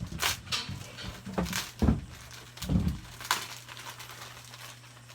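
Handling noise from a parcel being opened: about half a dozen short crackles and knocks in the first three and a half seconds, then quieter, over a steady low hum.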